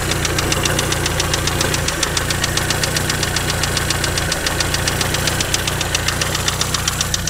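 1956 Standard 8's four-cylinder overhead-valve engine idling with a rapid, even tapping from the top end. The tappets have just been re-set, and the owner is 95% sure the tap comes from the rocker gear rather than the timing chain, which he puts down to a worn rocker shaft.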